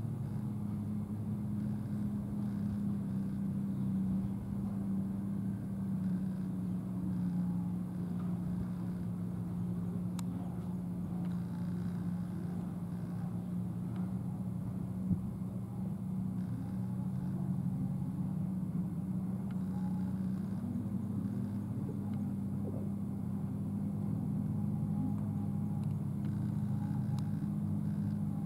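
A steady low engine hum at an even pitch, with one short sharp tick about halfway through.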